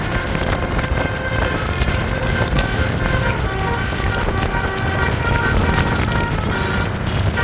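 A bus's multi-tone Basuri telolet air horn playing a tune of short changing notes, over a steady rumble of engine and street noise.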